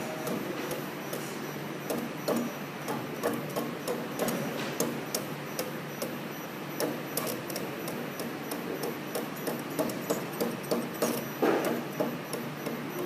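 VK04 automatic steel-rule blade bending machine at work, its bending head and feed making many sharp, irregular clicks and knocks over a steady machine hum. The knocks come thickest and loudest near the end.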